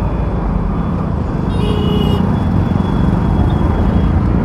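Steady engine and wind rumble of a Hero Splendor motorcycle being ridden on the road, with a short vehicle horn toot about a second and a half in.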